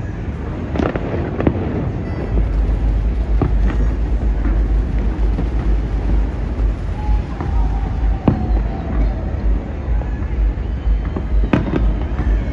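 Fireworks going off across the city at a distance: scattered bangs and pops at irregular intervals over a steady low rumble, with a louder cluster of bangs near the end.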